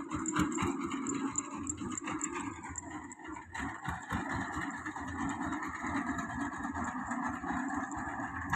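Engine of a grandong, a home-built rural utility vehicle, running with a rapid, even pulse; its sound changes about three and a half seconds in.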